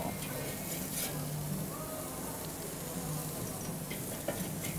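Beef burgers sizzling on the hot grate of a charcoal kettle grill, a steady hiss with a few light clicks.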